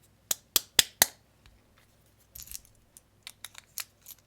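Stainless-steel magnetic fidget slider, its tuning forks removed, clicking sharply as it is handled: four quick clacks in the first second, then a short scrape and a run of lighter clicks.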